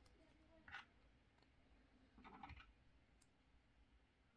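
Near silence with a couple of faint plastic clicks, a little under a second in and again past two seconds, as a small plastic rifle is fitted into an action figure's hands.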